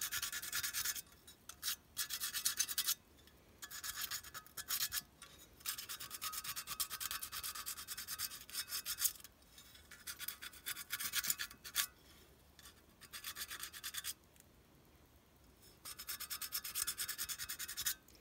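Sandpaper rubbed briskly over the painted metal body of a clockwork O gauge locomotive, stripping the paint. It comes in several spells of quick, scratchy back-and-forth strokes with short pauses between them.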